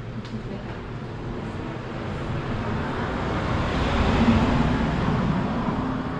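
A motor vehicle passing by: its engine and road noise grow louder, peak a little after the middle, then fade away.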